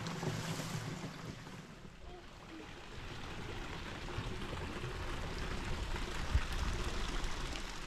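Mountain spring water or a small waterfall rushing steadily, a constant hiss of running water, with a brief low thump about six seconds in.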